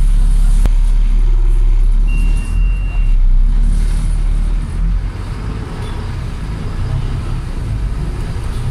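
A Volvo B7TL bus's 7.3-litre diesel engine and running gear rumble steadily as the bus drives along, heard from inside the bus. A brief high beep sounds about two seconds in, and the rumble gets quieter about five seconds in.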